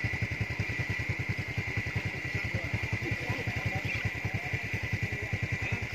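Small engine running steadily, a fast even chugging of about ten beats a second, with a steady high-pitched hum alongside it.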